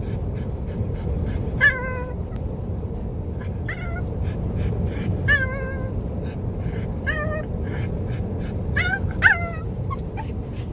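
A pug whining and crying in high-pitched yips that drop in pitch, about half a dozen spread a second or two apart, crying for its owner's attention. Steady low road rumble of the moving car's cabin runs underneath.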